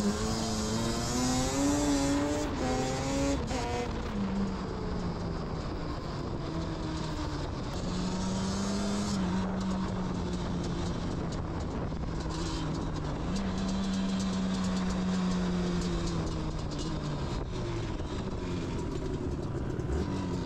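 Yamaha Banshee 350's twin-cylinder two-stroke engine under way, heard from on board the quad. The revs climb over the first few seconds, fall back near four seconds, then hold a fairly steady pitch with a few dips as it rides through the bends. Wind noise on the microphone runs under it.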